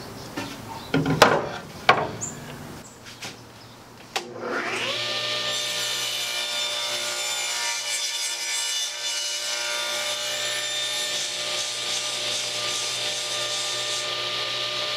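A few knocks as the board is handled, then a table saw is switched on about four seconds in, its motor rising in pitch to a steady run. The blade crosscuts a mahogany board for about five seconds, adding a hiss over the motor, then the saw runs on free.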